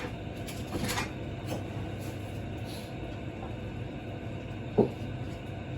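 Kitchen dishes and utensils handled while cooked food is served out: a few light clinks, then one sharp knock about five seconds in, over a steady low hum.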